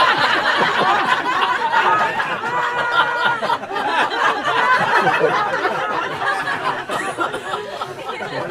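A roomful of people laughing, many voices at once, easing off slightly near the end.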